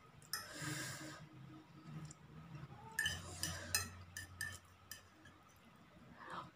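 Fork scraping and clinking against a plate while gathering noodles, with a soft scrape near the start and a run of light clicks about three to four and a half seconds in.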